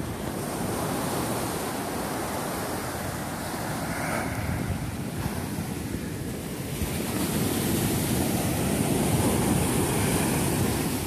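Ocean surf breaking on the shore, a steady rush that swells and eases as waves come in, with wind blowing on the microphone.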